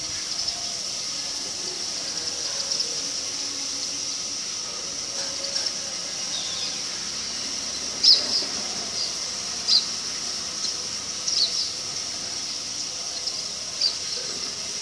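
Sparrows giving short, high chirps now and then, more often from about halfway through, over a steady high hiss.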